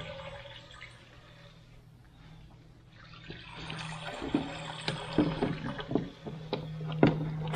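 Goat being hand-milked: milk squirts into a metal pail, faint at first, then coming in quick, repeated strokes from about three seconds in. A low steady hum sits underneath.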